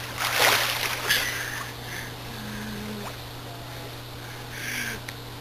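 Water splashing as a swimmer strokes through a swimming pool: two loud splashes in the first second or so, then quieter water, and another splash near the end.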